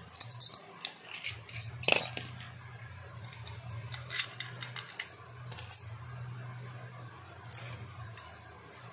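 Metal padlocks and keys being handled: a series of sharp metallic clicks and jingles, the loudest about two seconds in, over a low steady hum.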